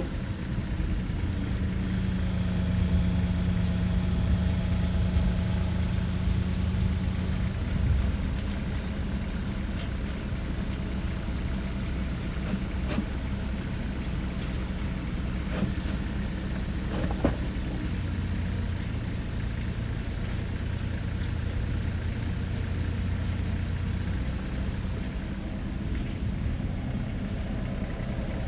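Kubota RX-406E mini excavator's diesel engine running as the machine is worked. Steady tones come and go over the engine noise, one in the first several seconds and a lower one later on, with a few sharp clicks midway.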